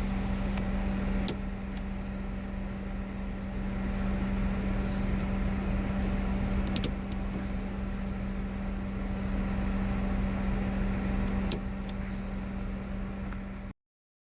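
A steady low hum over a low rumble inside a car, broken by a few sharp clicks of handling. The hum stops with the last click, and the sound cuts off suddenly near the end.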